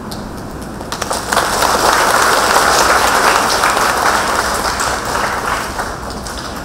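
A congregation applauding. The clapping builds up about a second in and dies away toward the end.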